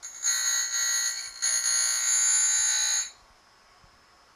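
Surface grinder wheel grinding a chamfer on the edge of a hand-fed metal workpiece in a chamfering block: a loud, high, steady screech in two passes. The first pass lasts about a second, and the second about a second and a half, stopping about three seconds in.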